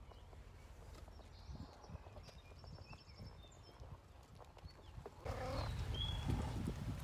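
Faint scrabbling and rustling of baby grey squirrels' claws on a fabric jacket. About five seconds in, a louder outdoor background takes over, with one short high chirp.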